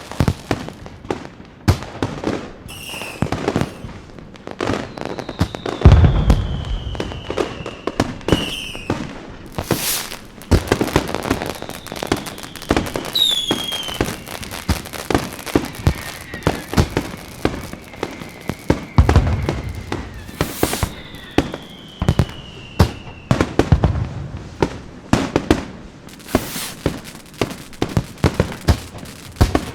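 Fireworks going off: a dense run of sharp bangs and crackling, with a few deep booms and several whistles that fall in pitch as they fly.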